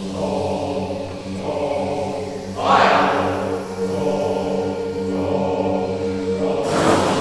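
Male voice choir of former coal miners holding a steady, low, wordless drone in several voices, vocalising the sounds of a coal mine. A loud breathy hiss cuts in about three seconds in and again near the end.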